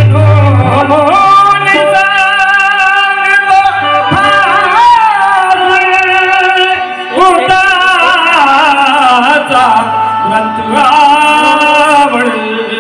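Bhim geet (Marathi devotional song) music: a long, wavering sung line without clear words over instrumental accompaniment.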